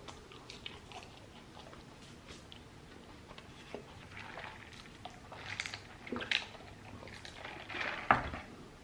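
Faint close-up chewing and mouth sounds of a person eating a cheeseburger, with a few louder short mouth noises in the second half.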